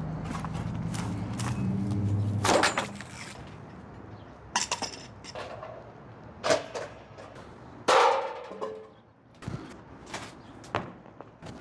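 A low rumble for the first two seconds or so, then about seven irregular hard knocks and thuds of junk and timber being handled and dropped, some with a short ring.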